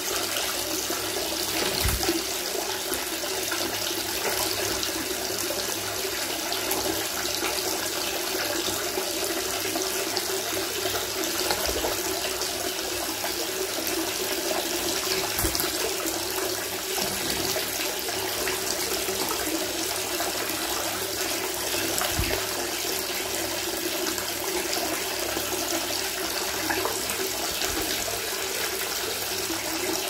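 Bath taps running steadily, water pouring and splashing into a bathtub. A few soft low bumps come through now and then.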